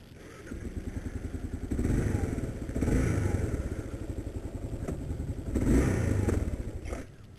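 Kawasaki KLR's single-cylinder engine running with a rapid even thudding that swells in a few brief surges, then cuts out suddenly about seven seconds in. The cut-out is the symptom the rider takes for a failed kickstand safety switch.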